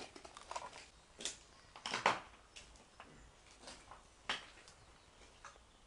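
Footsteps crunching and clicking over a rubble-strewn floor of broken brick, timber and debris, in an irregular string of short crunches, the loudest about two seconds in.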